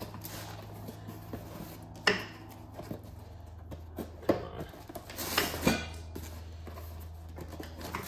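Loose steel wrenches clinking and rattling as a box of them is reached into and handled, with a few separate sharp metal clinks, over a steady low hum.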